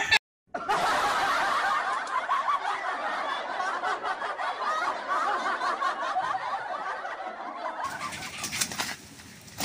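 Canned crowd laughter: a dense mass of many people laughing at once. It cuts off abruptly about eight seconds in, leaving faint outdoor ambience.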